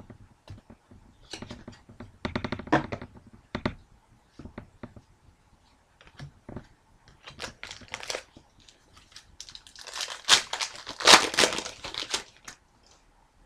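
Trading cards and their foil pack wrapper being handled: scattered clicks and rustling of cards, then a louder crinkling, tearing rustle about ten seconds in that lasts a couple of seconds.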